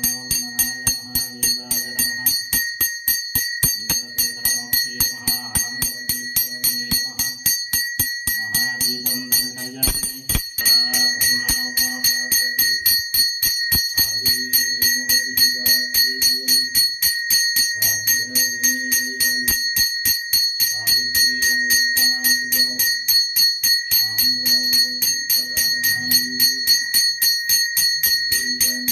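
Brass puja hand bell (ghanta) rung fast and steadily during the lamp aarti, several strikes a second, with a clear high ring. Under it, a lower steady-pitched sound comes and goes in phrases of about two seconds.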